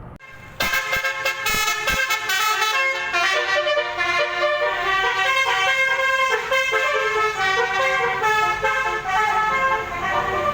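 Basuri multi-trumpet musical horn playing a tune in quick stepping notes, several trumpets sounding at once. It starts suddenly about half a second in.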